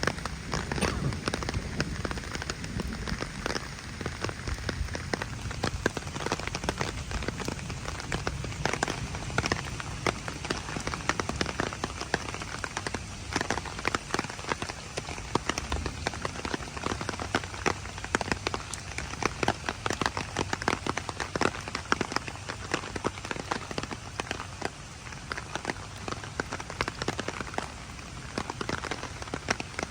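Heavy rain falling steadily, with many sharp individual drops striking close by.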